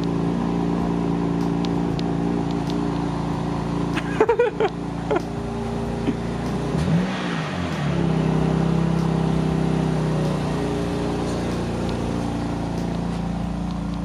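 BMW N52 inline-six engine running through a decatted exhaust, its secondary catalytic converters hollowed out and the valved muffler open. It idles steadily, with one quick rev that rises and falls about seven seconds in, then settles to a slightly louder steady idle.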